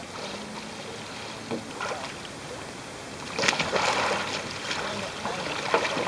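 Water splashing and sloshing as a kayaker sweeps a wooden Greenland paddle and rolls a wooden sea kayak back upright. There are a few small splashes early, then louder splashing from about three and a half seconds in.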